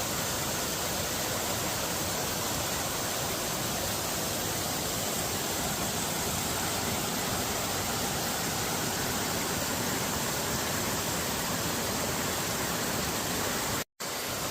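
Steady rush of a mountain creek pouring over cascades, an even unbroken wash of water. It cuts out completely for a moment near the end.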